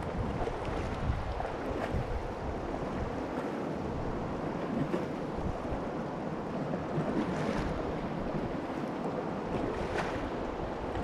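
Moving river water rushing through rapids, with wind buffeting the microphone. A kayak paddle dips into the water about every two and a half seconds.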